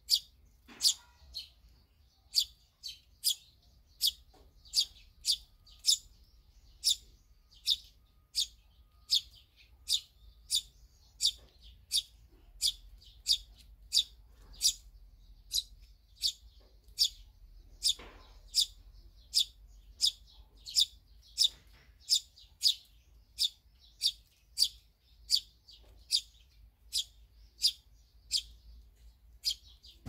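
A small bird chirping: short, high, sharp chirps repeated evenly, about two a second.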